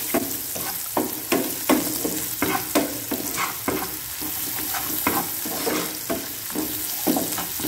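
Sliced onions and green chillies sizzling in oil in a frying pan, stirred with a spatula that scrapes and knocks against the pan every half second or so.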